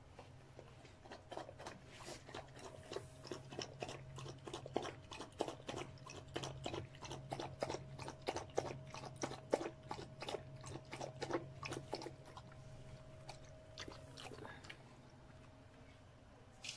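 A small dog crunching dry kibble from a stainless steel bowl: quick, irregular crunches for about twelve seconds, then a few scattered ones before they stop.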